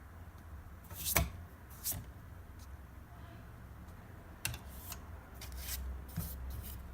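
Olympia SM3 portable typewriter being handled: about eight sharp, irregularly spaced mechanical clicks and clacks, the loudest about a second in, over a low steady hum.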